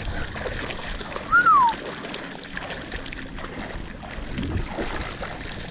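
Water swishing and rippling as a cast net's line is pulled in through shallow water. About a second and a half in, a single short high note falls in pitch, the loudest sound.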